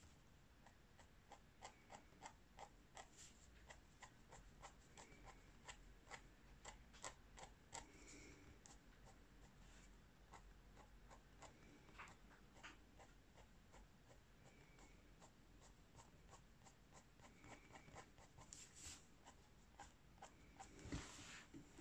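Faint tapping and scratching of a water-based marker tip on paper in short quick dabs, a few ticks a second, with one louder bump near the end.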